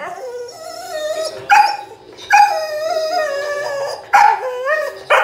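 A dog giving a run of drawn-out whining howls, about five calls with a wavering, sliding pitch. The longest call, in the middle, lasts about a second and a half.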